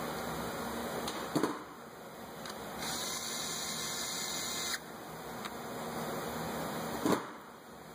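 Hand-tool work on an engine's ignition coil. There is a sharp knock about a second in and another near the end, and between them about two seconds of a high, hissing sound while the coil is fastened down, all over a steady background hiss.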